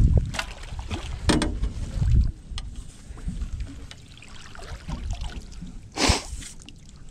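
Wind buffeting a GoPro microphone, with a few knocks from a landing net and rod being handled as a channel catfish is netted and lifted from the water. A short, loud rushing noise about six seconds in, as the full net comes up.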